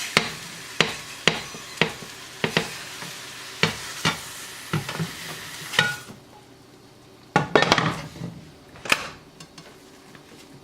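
Spatula knocking and scraping in a frying pan about twice a second over sizzling egg whites. The sizzle cuts off suddenly about six seconds in, followed by a short burst of cookware clatter.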